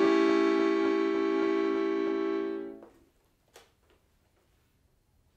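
Piano accordion holding a sustained chord, fading slightly and cut off a little under three seconds in, followed by a pause of near silence with a faint click or two.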